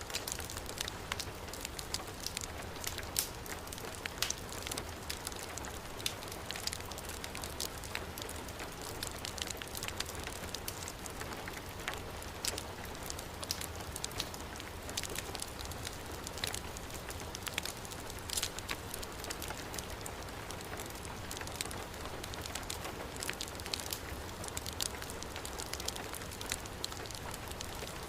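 Heavy rain falling in a steady hiss, mixed with the frequent sharp crackles and pops of a wood fire burning in a fireplace.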